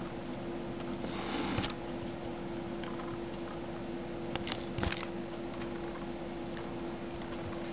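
Quiet indoor room tone with a steady low hum, a brief rustle about a second in and a few light clicks a little past the middle.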